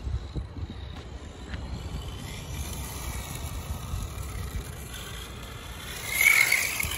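Electric RC car (Tamiya TT02 chassis) driving on asphalt, its motor and gears whining faintly at a distance, then louder in a rush as it passes close by about six seconds in. With the pinion gear reset, the drivetrain is sounding a whole lot better, without the earlier grinding.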